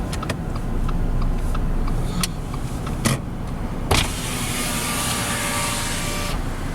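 Car driving, heard from inside the cabin: a steady low road and engine rumble with a couple of sharp knocks about three and four seconds in. A hiss with a faint steady whine follows for about two seconds and cuts off suddenly.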